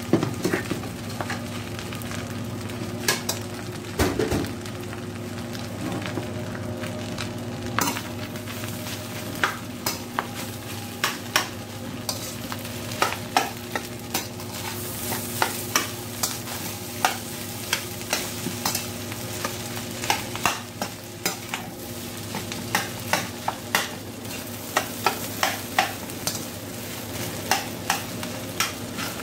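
Fried rice sizzling in a metal frying pan as a metal spatula stirs and scrapes through it, with frequent sharp clicks and taps of the spatula against the pan. A steady low hum runs underneath.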